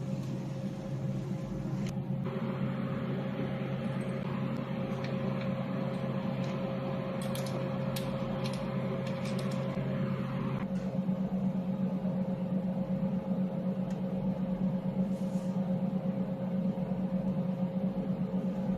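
Steady hum of a water-cooled jewelry laser welding machine running, its cooling and fan noise shifting in tone twice, with a few sharp ticks around the middle.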